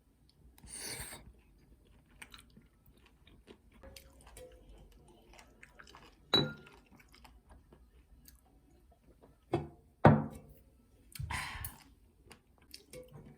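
Eating sounds: chewing, with a few sharp knocks of tableware. Three knocks stand out, one past the middle and two close together about three seconds later.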